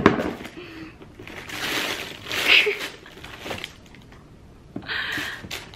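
Tissue paper rustling and crinkling as it is pulled back inside a cardboard shoe box, loudest in the middle, after a sharp knock against the box at the very start. A couple of short vocal sounds come through.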